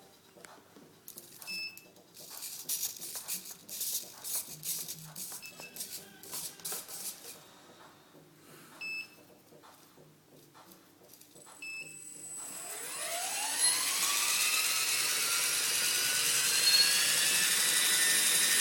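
Radio transmitter giving short low-battery beeps every few seconds, among handling clicks. About twelve seconds in, the Align T-Rex 450 electric RC helicopter spools up with a rising whine and then runs steadily at low rotor speed, its main blades tightened too much so the helicopter wobbles.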